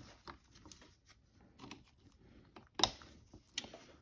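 Scattered small metallic clicks and taps of hand work on a motorcycle-type clutch assembly, with a sharper click a little under three seconds in and another shortly after, as the clutch snap ring is fitted back into its groove.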